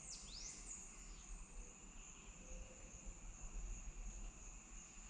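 Faint steady buzzing of rainforest insects, held on constant high tones. In the first second a bird's whistle swoops down and back up.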